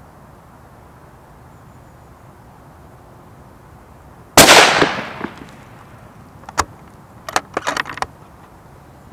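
Sako S20 bolt-action rifle in .308 firing a single shot, the report ringing and fading over about a second. About two seconds later there is a sharp click, then a quick run of metallic clicks as the bolt is cycled to eject the spent case and chamber the next round.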